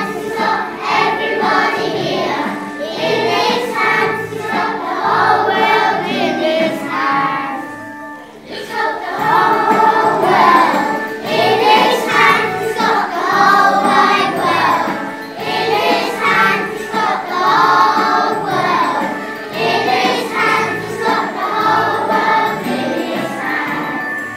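A group of children singing a song together with musical accompaniment, with a brief pause about eight seconds in.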